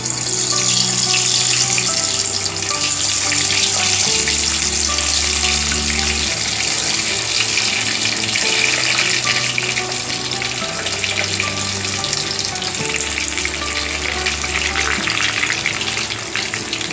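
Boiled whole potatoes sizzling and crackling in hot refined vegetable oil in a kadai as they are added one by one to fry. Background music with slow, held low notes plays underneath.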